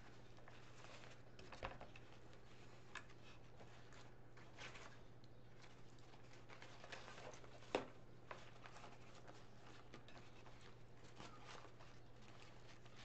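Faint rustling and crinkling of fabric ribbon being looped and pinched onto a wooden bow maker, with a few sharp clicks or taps, the loudest about eight seconds in, over a steady low hum.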